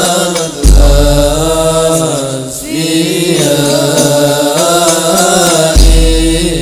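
Arabic devotional chant of salutations to the Prophet, sung in long, drawn-out melodic lines. A deep drum beat comes in about half a second in and again near the end.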